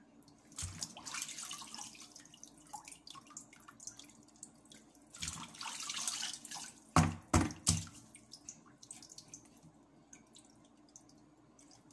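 Water splashing and dripping as a whole fish is washed and rubbed clean by hand over a basin of water, in two short spells. Three loud knocks come in quick succession a little past halfway.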